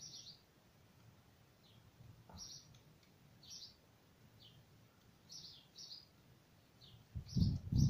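A small bird chirping again and again, short high chirps a second or so apart. About seven seconds in, a loud low rumbling noise starts.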